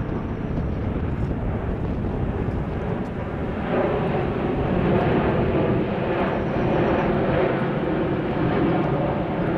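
Boeing 747-400 climbing out overhead, its four jet engines making a steady rushing noise. A few seconds in it grows louder and a low hum rises above the rush.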